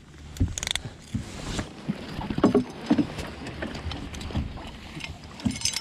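Irregular knocks, thumps and clatter of handling aboard a boat as two caught bass are taken out to be weighed against each other for culling. The loudest knock comes about halfway through.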